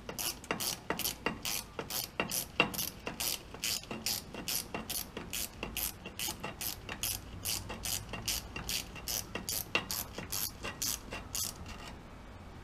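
Hand ratchet clicking in a steady run of about three to four clicks a second as the small bolts holding a new rear drum-brake wheel cylinder are run in from behind the backing plate. The clicking stops about a second before the end.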